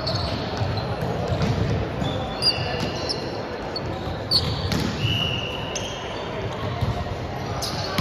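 Indoor volleyball play in an echoing sports hall: a few sharp ball hits and short high sneaker squeaks on the wooden court, over a steady din of players' voices.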